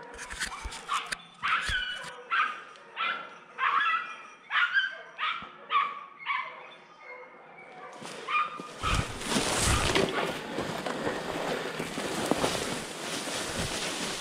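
Jagd terriers barking in short, repeated, high-pitched yelps, about a dozen in the first seven seconds: dogs giving tongue on the trail during a wild boar drive. From about nine seconds in, a loud steady rushing and rustling noise close to the microphone covers everything else.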